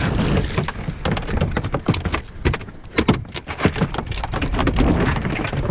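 Quick, irregular knocks and clatters aboard a small boat, thickest from about one to five seconds in, over a steady rush of wind and sea.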